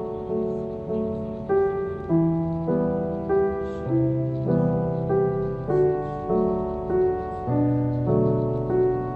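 Background solo piano music, a gentle piece with notes struck about twice a second, each fading before the next.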